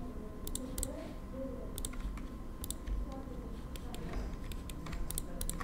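Computer mouse and keyboard clicks, irregular and often in quick pairs, about one to two a second.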